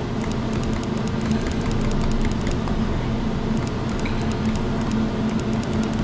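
A laundry machine running: a steady mechanical hum with a low droning tone, and faint irregular high ticks over it.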